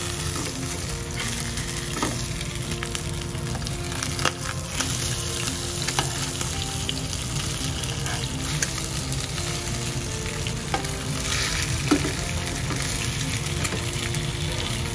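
Flour-dusted shark fin frying in oil in a nonstick frying pan, sizzling steadily as it browns. A metal slotted spatula scrapes and clicks against the pan several times while the fin is turned over.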